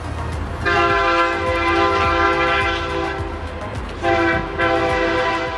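Locomotive horn sounding two blasts, a chord of several steady tones: a long one of nearly three seconds, then a shorter one near the end, over the low rumble of the passing train.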